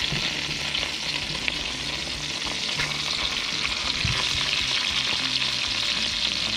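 Fish fillets sizzling in melted butter in a nonstick skillet, a steady frying hiss. The sizzle grows louder about halfway through as a second fillet is laid into the pan with tongs.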